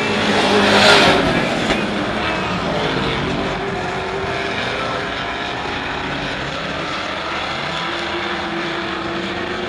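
Dirt-track race trucks running flat out around the track. One truck passes close about a second in and swells loudest, then several engines run on steadily further off.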